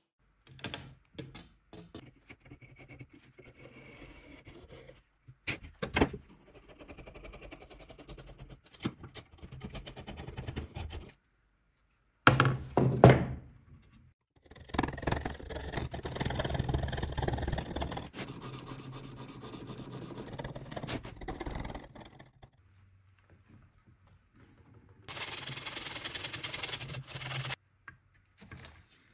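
Hand woodworking on old wooden boards: scattered knocks and scrapes of wood and tools, with one loud knock about twelve seconds in, then several seconds of steady scraping as a blade is worked along a groove in a board, and a short hiss near the end.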